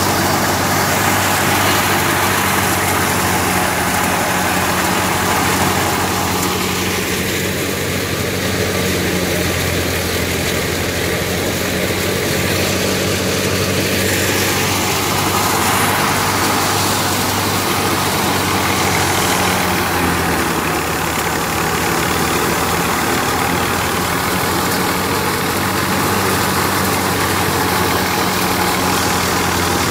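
Tractor-driven wheat thresher running steadily under load: the tractor's engine hums at a constant speed under the rushing of the threshing drum and fan blowing out straw and chaff.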